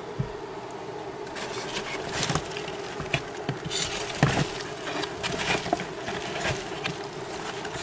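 Cardboard egg-crate flats in a dubia roach bin rustling and scraping as they are handled. An irregular dry crackle starts about a second and a half in and is loudest around four seconds in, over a steady low hum.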